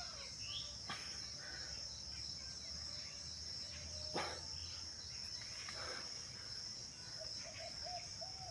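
Steady high-pitched drone of insects, with short bird calls scattered through it and a sharp knock about four seconds in.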